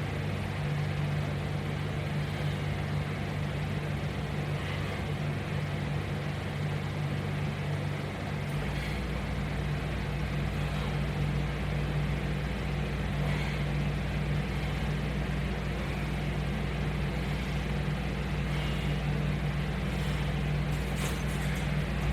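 Steady low machine hum, with a deeper rumble joining about a third of the way in and a few faint soft sounds every few seconds.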